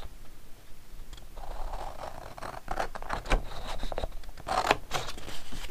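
Scissors cutting through heavy 210 gsm cardstock: a series of sharp snips in two short runs, the first a bit past halfway and the second near the end.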